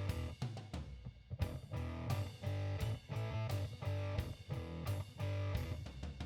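Background music: an instrumental track with electric guitar and a steady drum beat.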